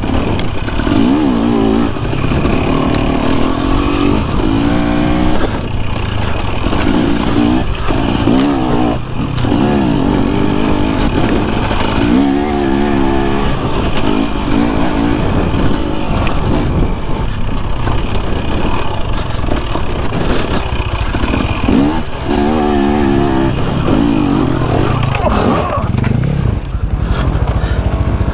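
KTM 250 XC two-stroke dirt bike engine, revving up and down as the throttle is worked, its pitch rising and falling over and over.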